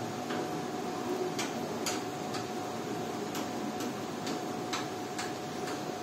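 Regular ticking, about two sharp ticks a second with one skipped beat, over a steady background hum.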